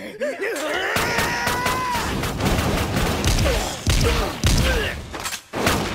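Handgun shots fired in quick succession while men yell, followed by heavy hits and short cries as blows land.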